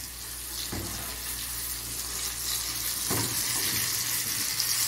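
Breaded shrimp deep-frying in a small pot of hot oil, a steady hissing sizzle, with a couple of soft knocks about a second in and again around three seconds.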